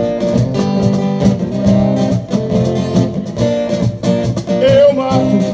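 Band music with no singing: an instrumental passage carried by strummed guitar.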